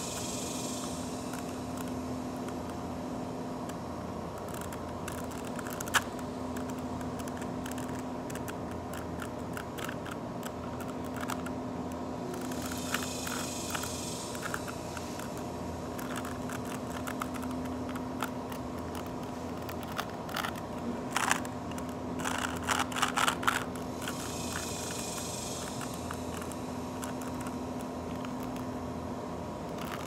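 Rubik's cube being turned by hand: quick plastic clicks and scrapes of the layers, coming in flurries, the busiest about two-thirds of the way through. Under them runs a steady hum, with a hiss that swells and fades a few times.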